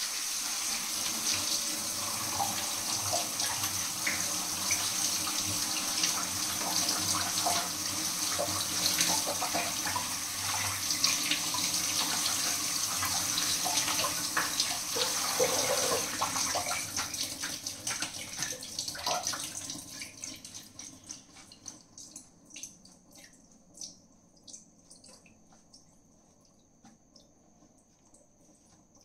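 Water running from a tap into a sink with splashing, tapering off and stopping about twenty seconds in, followed by a few faint clicks and knocks.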